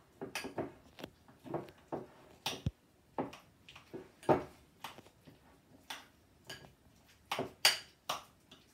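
Boiled elephant foot yam being mashed with gram flour in a glass bowl: irregular clicks and knocks against the glass, a few a second, the loudest about four seconds in and again near the end.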